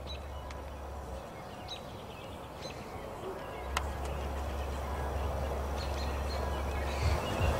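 Outdoor ambience: faint, scattered bird chirps over a steady low rumble, which drops away for a couple of seconds early on, and a rising hiss near the end.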